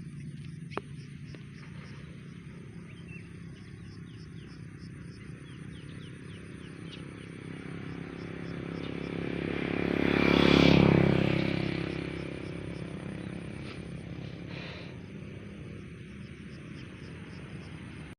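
A motorbike passes by, its engine growing louder to a peak about eleven seconds in, then fading away.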